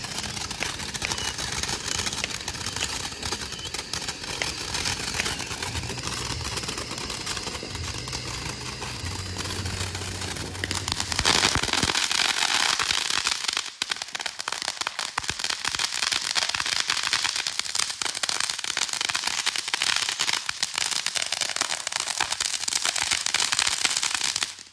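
A large snowball fountain firework burning with a dense, continuous crackle. It grows louder about halfway through, then stops abruptly near the end.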